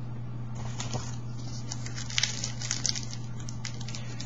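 Trading cards and foil pack wrappers being handled: a string of soft clicks and rustles, busiest about two to three seconds in, over a steady low hum.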